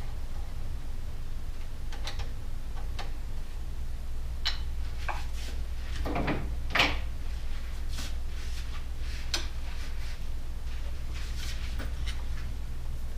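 Scattered light clicks and knocks of hand tools and small metal parts being handled while the throttle and clutch controls are taken off a motorcycle's handlebars, with a louder clatter about seven seconds in. A steady low hum runs underneath.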